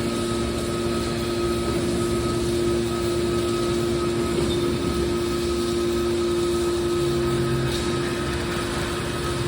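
Horizontal hydraulic metal baler running with a steady mechanical hum and a constant tone.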